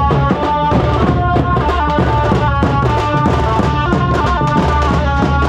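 A drum band playing a fast, dense rhythm under a melody of held notes that step from pitch to pitch.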